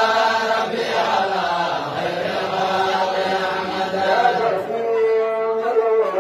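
Islamic devotional chant (nasheed) in praise of the Prophet Muhammad: a voice singing long held melodic notes with ornamental bends in pitch.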